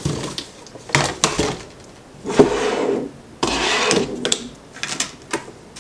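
Camera gear being handled and set down on a stone countertop: a scattering of light clacks, with two longer scraping noises about two and three and a half seconds in.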